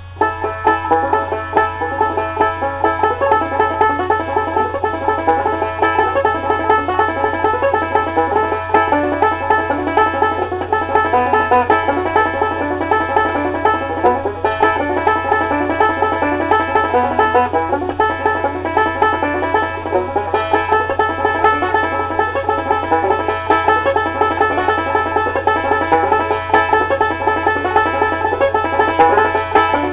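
Solo banjo picked fast and continuously, a quick stream of bright plucked notes in a bluegrass instrumental, with a steady low electrical hum underneath.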